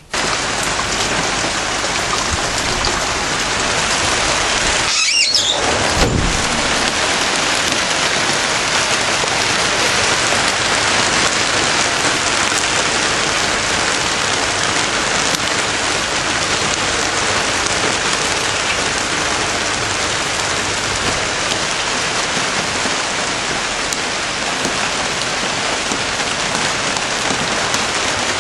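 Steady heavy rain falling and pattering on surfaces, with a brief knock about five seconds in.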